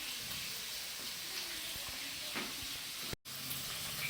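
Chicken liver pieces frying in hot oil, a steady sizzling hiss with a few faint pops. The sound cuts out completely for a moment about three seconds in.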